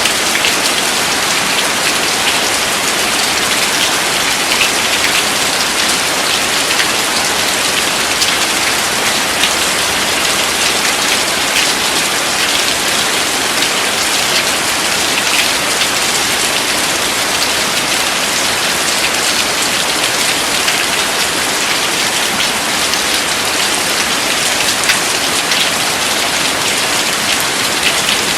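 Steady heavy rain: a dense, even patter with no thunder.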